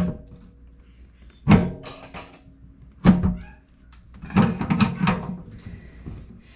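Loud knocks with a short ringing after each, about every second and a half, the last two close together: metal tool striking and forcing a kitchen sink strainer's locknut while trying to loosen it.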